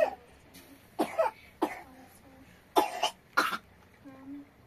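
A person coughing repeatedly: about six short, harsh coughs, several of them in quick pairs.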